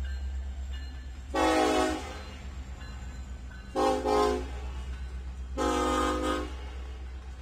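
Diesel locomotive air horn sounding three blasts, about a second and a half to two seconds apart, the last one the longest, over the steady low rumble of the passing locomotives.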